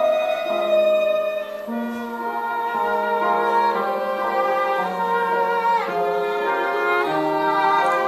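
Live theatre pit band playing a slow instrumental passage of held notes that change step by step, with a falling slide about six seconds in.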